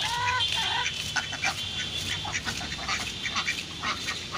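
Repeated quacking bird calls, the clearest right at the start, over short clicks and scrapes as a large fish is cut on a boti blade.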